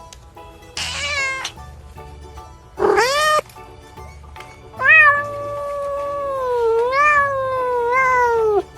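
A cat meowing: two short meows about one and three seconds in, then one long drawn-out yowl of nearly four seconds that wavers in pitch and cuts off near the end. Background music plays underneath.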